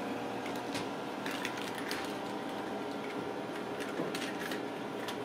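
Light, scattered taps and clicks of kittens batting a small plastic ball across a rug and wooden floor, with a cluster of taps about four seconds in, over a steady room hum.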